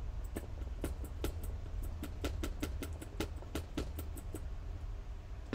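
A new stamp being dabbed against an ink pad to ink it: a quick run of light taps, about four or five a second, stopping near the end, over a low steady hum.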